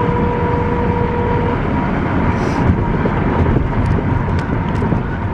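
Road and tyre noise inside the cabin of a Mazda 6 being towed on a rope with its engine dead. A thin steady high tone runs through it and a lower tone stops about a second and a half in.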